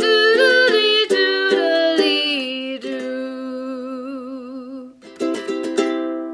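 A woman singing the last line of a children's folk song to ukulele strumming, ending on a long held note with vibrato. A few final ukulele strums follow and ring out.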